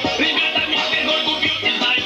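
Dance music with a steady beat playing loudly over loudspeakers.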